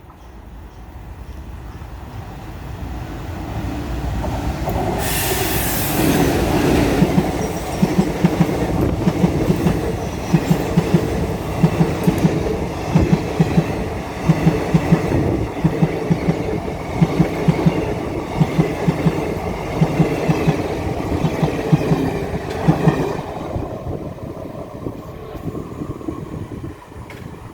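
Train passing: a rumble builds as it approaches, with a brief rush of hissing noise about five seconds in, then the wheels clack over the rail joints in regular groups for some fifteen seconds before the sound fades away.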